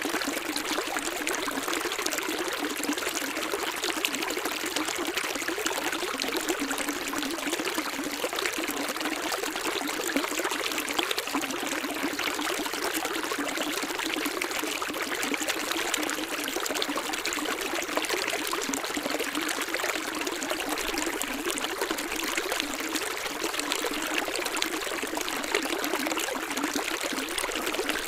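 Running water: a small stream splashing and trickling steadily.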